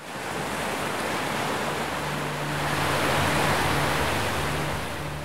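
Sea surf: waves breaking and washing in, a steady rush of water that swells to its loudest about three seconds in.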